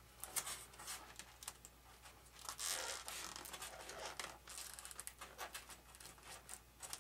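Wires being pressed into a channel cut in a foam airframe: scratching and rubbing with many small clicks, busiest around three seconds in.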